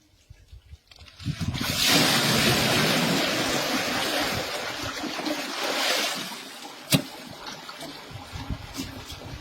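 A rush of splashing, pouring water that starts about a second and a half in and fades away after about six seconds, typical of well water being emptied out. One sharp click follows near the end.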